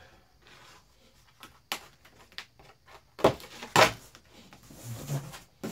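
Cardboard box flaps being pulled open, the packing tape tearing loose: a few light taps and rustles, then two loud rips about half a second apart, a little past the middle.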